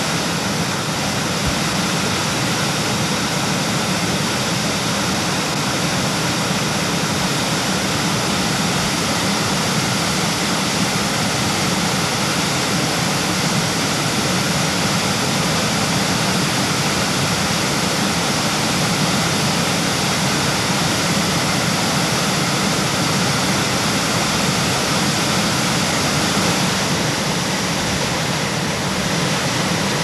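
A waterfall pouring into a stream: a steady, unbroken rush of falling water.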